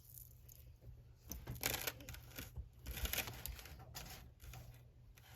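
Rustling and light clicking as a glass-bead necklace is handled, louder in two short stretches about a second and a half and three seconds in, over a low steady hum.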